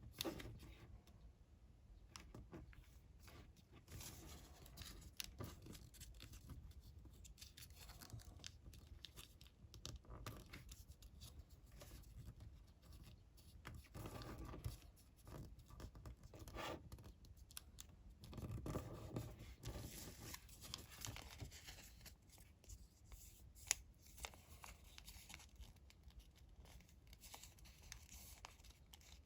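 Faint rustling, scraping and creasing of a sheet of origami paper being folded by hand, with scattered soft clicks and one sharp tick near the end.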